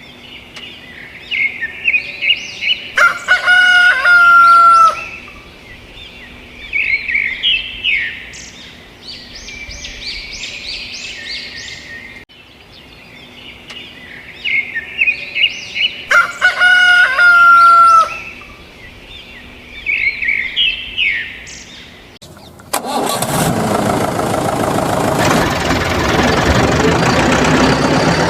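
Small birds chirping with a rooster crowing, the same stretch of bird sounds heard twice over. About 23 seconds in, a loud, steady, engine-like motor noise starts and runs on.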